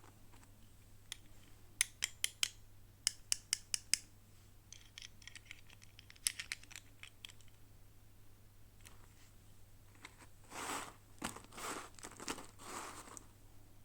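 Toy packaging being opened: a quick run of sharp snips like scissors cutting, then lighter crinkling, then several longer rustling tears of the wrapping near the end.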